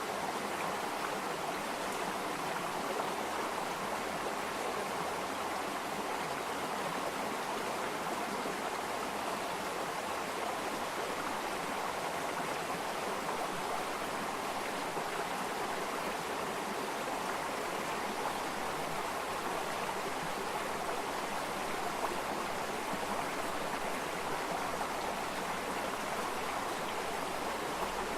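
Stream of running water flowing steadily with an even rushing sound.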